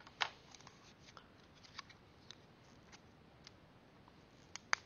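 Scissors being handled and laid down on a cutting mat: a few faint clicks and taps, with two sharp clicks close together near the end.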